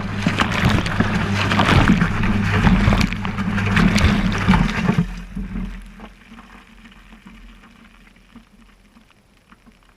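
Water churning and sloshing inside a washing machine drum around the camera, with a steady motor hum. About halfway the hum stops and the churning dies away to quiet.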